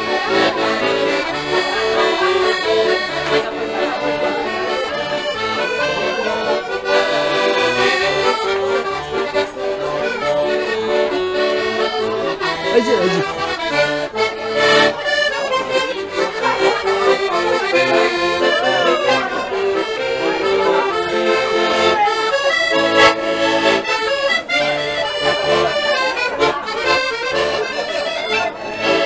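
Hohner button accordion playing a lively traditional tune, with chords over a steady bass rhythm.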